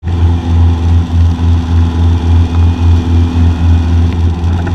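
Cessna 150's propeller engine droning steadily in cruise flight, heard from inside the cockpit. The low drone swells and fades about three times a second.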